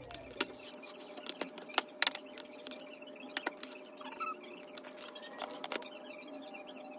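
Scattered clicks and light taps of a computer keyboard being handled and swapped out, irregular, over a faint steady hum.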